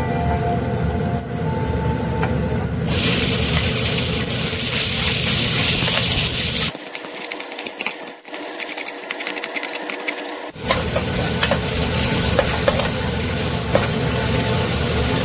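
Beef pieces sizzling in hot oil in a pan while a wooden spatula stirs and scrapes them. The sizzle grows much louder about three seconds in, over a steady low hum.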